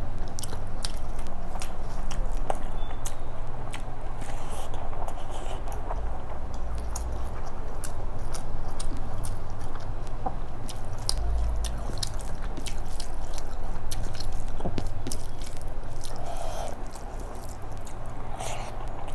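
Close-miked chewing of chicken biryani, with many small wet clicks and smacks from the mouth.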